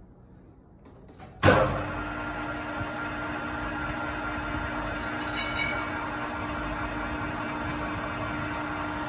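Metal lathe starting up about a second and a half in with a sudden jump, then running steadily with a constant hum, turning a brake disc that is being faced flat.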